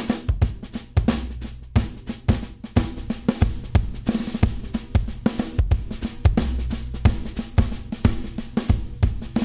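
Recorded drum kit playing a steady groove of kick, snare, hi-hat and cymbals, heard on the drum bus processed through a 5020 stereo FET limiter, which gives it a heavier, angrier sound.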